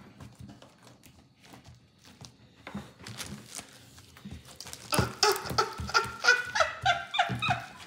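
Pink glitter slime being stretched and squeezed by hand, giving faint sticky clicks and pops. About five seconds in, a child starts making wordless voice sounds that rise and fall in pitch, louder than the slime, for nearly three seconds.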